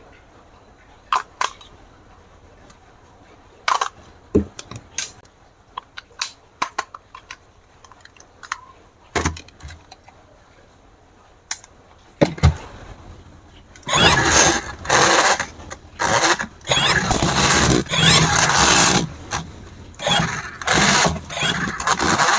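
Scattered clicks and knocks of a plastic toy being handled, then, about two-thirds of the way in, a radio-controlled toy running in repeated short bursts, its small electric motor and gears whirring loudly as it is driven on and off.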